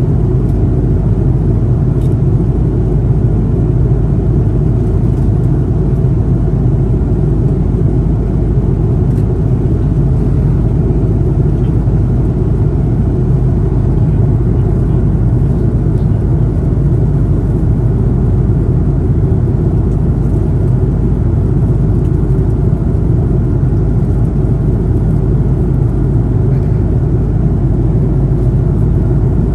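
Steady cabin noise of an Airbus A330-200 airliner in flight, a loud even low rumble of engines and airflow with a few faint ticks.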